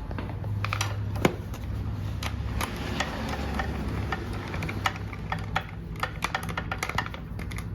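Ratchet wrench clicking as the 10mm taillight bolts are backed out: irregular clicks with a sharper snap about a second in, then a quicker run of ticks near the end, over a low steady hum.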